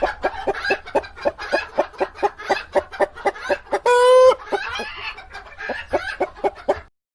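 Chicken clucking: a rapid, even run of clucks about five a second, with one longer drawn-out squawk about four seconds in, cut off abruptly near the end.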